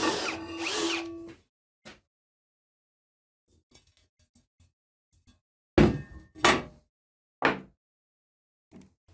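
A power tool running, then spinning down and stopping in the first second and a half. After a pause come three loud sharp knocks on metal or wood, about a second apart.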